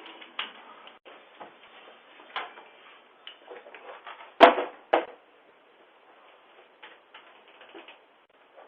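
A front door being handled: scattered knocks and clicks, with a loud bang about four and a half seconds in and a second one half a second later, heard through a Ring video doorbell's narrow-band microphone.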